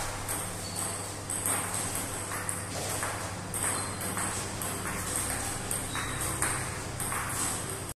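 Table tennis rally: a celluloid-type ping-pong ball clicking off the bats and bouncing on the table in quick succession.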